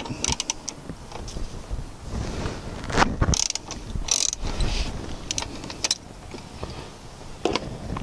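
Socket ratchet clicking in short runs while an E12 external Torx seat-belt anchor bolt is backed out of a car seat, with a few sharp metal clicks and clinks in between.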